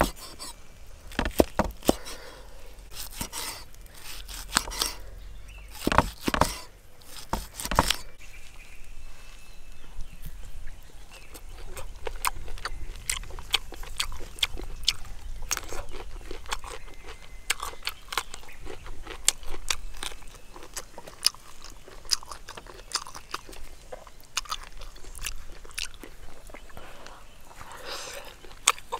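A person eating up close, biting and chewing food with many small sharp clicks, and louder knocks in the first eight seconds.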